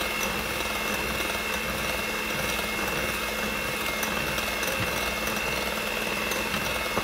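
Hamilton Beach 6-speed electric hand mixer running steadily with a constant whine, its beaters whisking eggs and sugar in a glass bowl.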